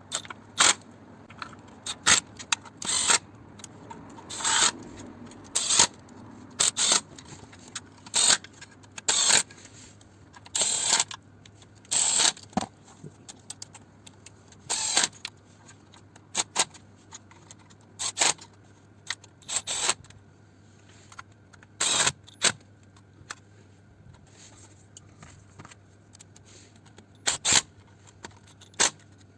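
Ratchet wrench clicking in many short bursts with pauses between, as the oil sump bolts are run in and tightened one after another.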